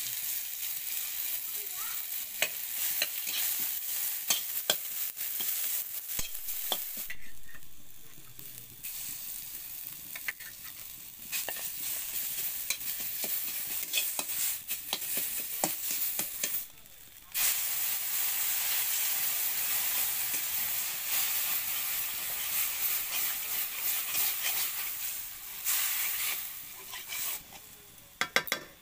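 Onion and then spices sizzling in hot oil in a metal kadai, stirred with a metal spatula that scrapes and clicks against the pan. The sizzle drops away briefly about two-thirds through, then comes back.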